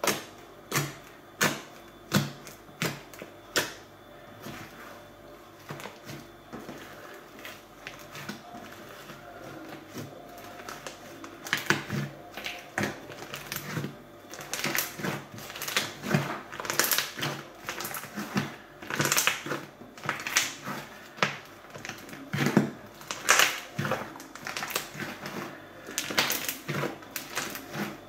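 Fluffy slime made of glue and shaving foam being pressed and kneaded by hand, giving off sharp popping clicks from trapped air. At first single clicks come about every second; from about halfway they come thick and fast in crackling clusters.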